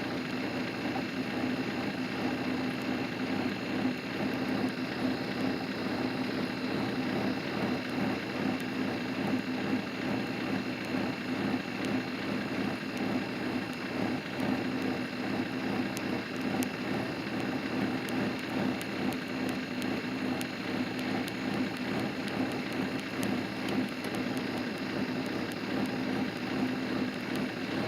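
Steady rain with a constant hum from a running vehicle, and a few faint ticks of drops.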